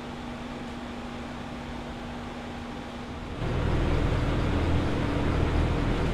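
Steady machinery hum; about three seconds in, a louder, deeper machine noise starts up and keeps running.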